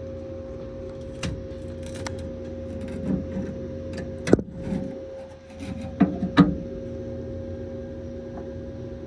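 A steady mechanical hum with two fixed tones, with a few sharp knocks and clicks of metal parts being handled and worked toward an opening: the loudest come about four seconds in and twice around six seconds.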